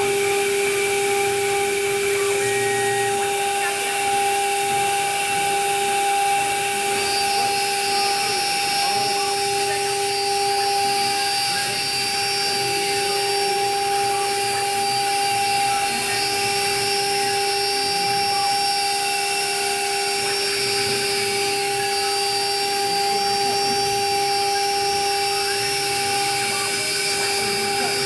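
CNC router running, its spindle giving a steady whine in two notes over a constant hiss; a fainter, higher-pitched whine joins about seven seconds in.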